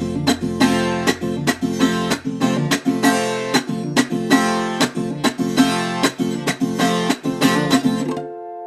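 Viola caipira, the Brazilian ten-string folk guitar, strumming a hymn tune in a steady rhythm, with a low bass note held under the first two seconds. The strumming stops about eight seconds in and the last chord is left ringing and fading.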